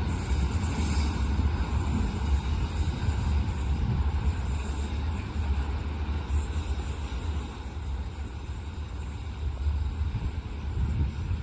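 Steady low rumble of a passing vehicle, easing off through the middle and growing again near the end.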